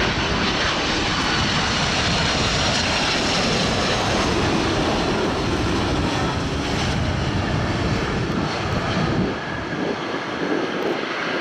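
Jet engine roar of an American Airlines Airbus A330-323, its Pratt & Whitney PW4000 turbofans, landing and touching down on the runway, with a faint high whine that drifts slightly lower. The roar eases a little near the end.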